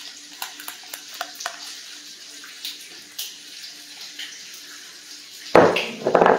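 Steady sizzling hiss of bacon frying in a skillet, with light clicks and scrapes of a utensil spreading thick biscuit batter around a cast iron skillet. About five and a half seconds in comes a loud low knock or thump from the pan being handled.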